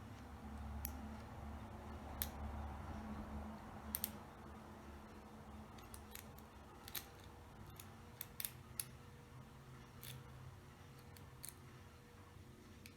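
Faint, irregular metallic clicks from a lock pick and tension wrench working the pins of a SEGAL five-pin cylinder lock, about a dozen scattered through the time, some in quick pairs. A low rumble of handling runs under the first few seconds.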